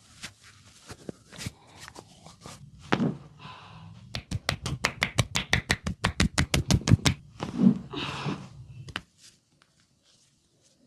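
Hands striking a head in a fast percussive massage, a run of sharp slaps about eight a second lasting some three seconds, with scattered taps and rubbing around it. It stops about nine seconds in.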